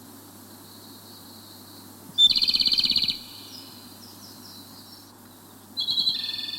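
Wild bird calling in a highland recording: a loud, rapid trill lasting just under a second about two seconds in, then a second trilled call starting near the end. A faint high, steady background of more distant birds or insects runs behind.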